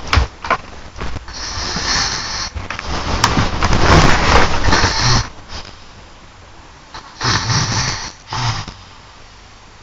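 Snoring: several long, noisy breaths of a second or two each, with quieter pauses between them and a couple of short clicks near the start.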